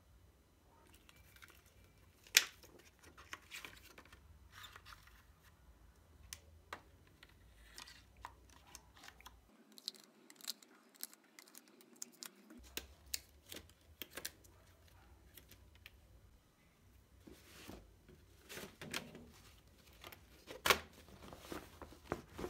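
Hands handling plastic Copic Sketch markers and their packaging: scattered clicks and taps of the marker barrels and caps, with rustling and crinkling of a clear plastic sleeve. Two sharper clicks stand out, one a couple of seconds in and one near the end.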